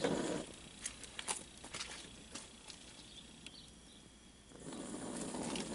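Faint scattered clicks and ticks as the gas grill's burner knobs are turned down to low, then a soft steady hiss that starts about four and a half seconds in.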